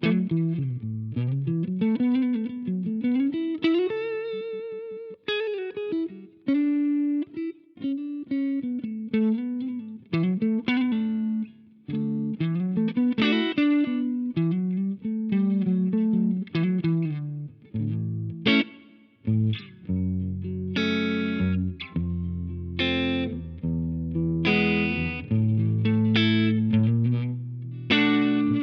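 Electric guitar played through an iSet Dumbler Dumble-style overdrive pedal, giving a light, crunchy drive tone. Picked single-note phrases with a note held in vibrato about four seconds in give way to fuller, heavier chords in the second half.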